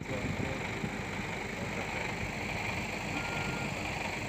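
A car fire burning fiercely, with a steady rushing hiss and irregular crackling.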